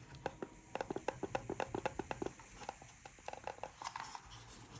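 Quick run of faint plastic clicks and taps from a Lenovo 600 Bluetooth mouse's shell being handled and turned over in the hands, densest in the first couple of seconds and thinning out after.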